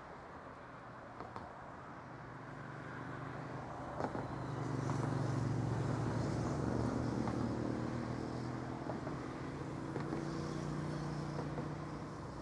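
Low engine drone that swells over a few seconds, grows loudest about halfway in and then holds steady with a slight change in pitch.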